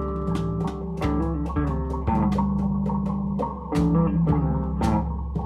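Background music: a bass guitar line and plucked guitar over a steady drum beat.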